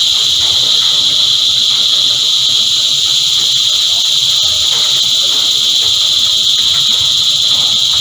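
Cicada chorus: a loud, steady, high-pitched buzz with no breaks.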